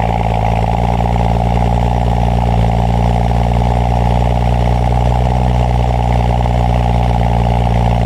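BMW 335i's turbocharged straight-six idling steadily just after a cold start.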